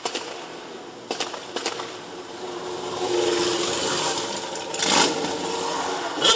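Car engine accelerating and revving, building up a few seconds in, with a few clicks early on and a sharp knock near the end.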